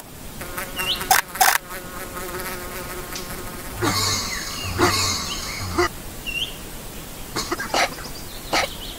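Bee buzzing in flight, fading out about three seconds in, with several sharp clicks and snaps and a few short noisy bursts scattered through.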